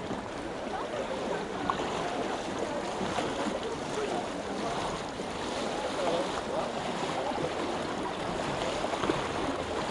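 Floodwater sloshing and splashing steadily as people wade through it and an aluminium boat is pushed along, with faint voices behind it.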